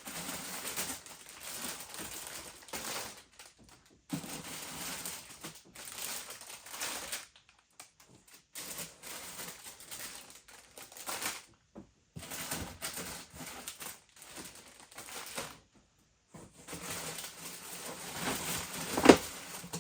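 Plastic bags crinkling as bagged plastic model-kit sprues are handled and laid out, in stop-start bursts with plastic parts clacking. A sharp knock near the end.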